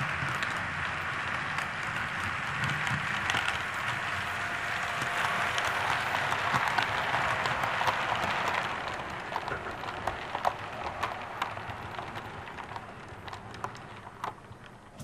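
Model diesel train running past on its track: a steady rattling whir of small wheels and motor that fades from about nine seconds in, leaving scattered clicks as the coaches roll away.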